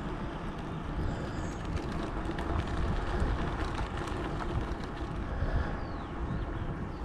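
Bicycle rolling along a path: steady tyre rumble with small rattles and clicks from the bike, and wind buffeting the microphone. A few faint high bird chirps sound over it, mostly near the end.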